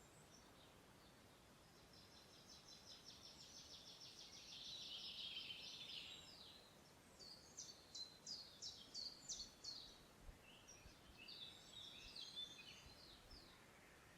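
Songbirds singing: a long, fast trill of high notes that swells over a few seconds, then a run of sharp, high, quick-falling notes at about four a second, then a shorter jumbled phrase near the end, over faint steady background hiss.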